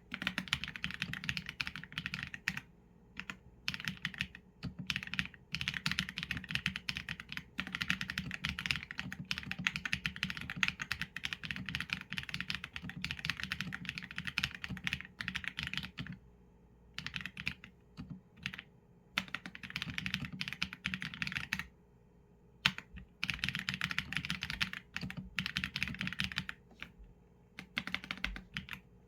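Typing on a Qsenn A75 mechanical keyboard with Leobog Graywood v4 linear switches and PBT keycaps: quick runs of keystrokes broken by short pauses of about a second.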